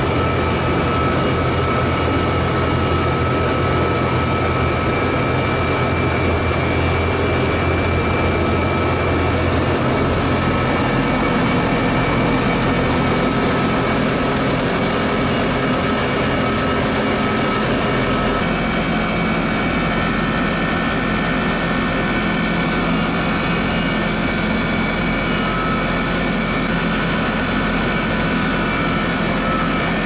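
LG system air conditioner outdoor unit (LRP-N2908M2) running with its compressors and fan on: a loud, steady mechanical hum and whir. The low hum shifts about ten seconds in and again around eighteen seconds.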